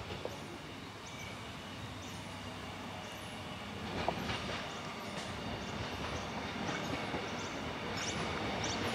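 An X'Trapolis 100 electric multiple-unit train approaching: a steady rumble of wheels on rail that grows gradually louder as it nears, with a small knock about four seconds in.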